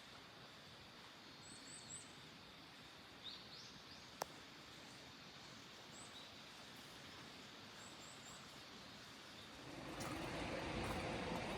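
Quiet outdoor ambience: a steady hiss with a few faint, short, high bird chirps, some in quick runs of three. There is a single sharp click about four seconds in. Near the end the hiss grows noticeably louder and fuller.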